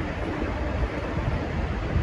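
Steady low rumble of diesel train engines running at the platform, with a faint steady hum.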